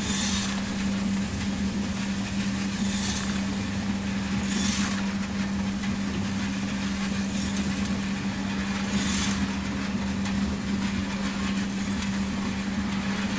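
Probat LP5 coffee roaster's cooling tray running with a steady motor and fan hum holding one constant tone. Now and then a short hissing swish comes as the rotating stirring arms sweep the last roasted beans across the perforated screen toward the open discharge hatch.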